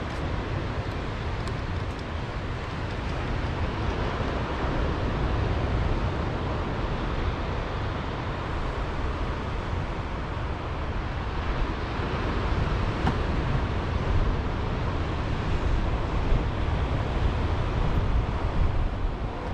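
Wind buffeting the microphone with a low rumble, over the steady wash of surf on a beach.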